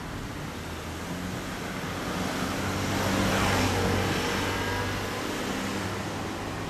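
A 2015 Yamaha YZF-R1M's crossplane inline-four idling steadily through an Akrapovic Evolution Line titanium full exhaust, a low even hum. A louder rushing swell rises and fades about halfway through.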